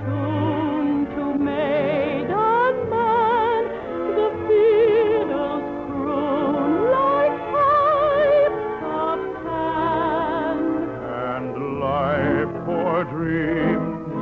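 Waltz from a radio operetta: a singer with wide vibrato and sliding rises carries the melody over a full orchestra, in the narrow, muffled sound of an old broadcast recording.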